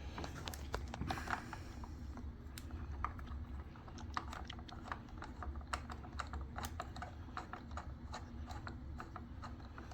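Irregular light clicks and taps of a small hand tool and metal parts as a screw is worked out of the floor machine's handle trigger assembly.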